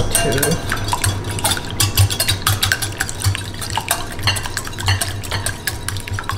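Wire whisk beating raw eggs in a glass bowl, its wires clicking against the glass in a quick, steady rhythm.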